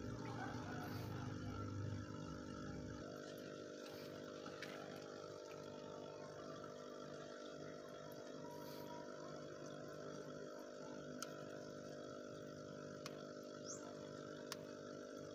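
Aquarium air pump humming steadily, with bubbles fizzing up from the air line; a low rumble under the hum drops away about three seconds in. A few faint clicks and a short rising high chirp come near the end.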